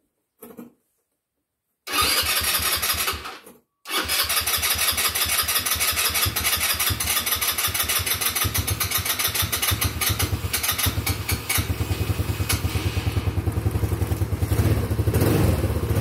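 First start of an Icebear Maddog Gen 4 150cc scooter's single-cylinder four-stroke engine: it catches about two seconds in, drops out for a moment, then fires again and runs steadily at idle with an even low pulse.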